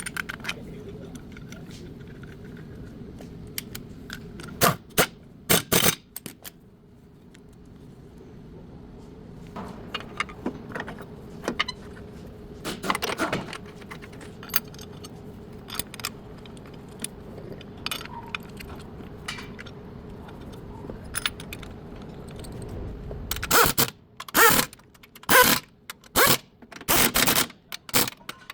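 Metal tools and parts clinking and scraping against metal during car repair work, over a steady hum. The hum stops about 23 seconds in, and a quick run of loud, sharp metallic clacks follows.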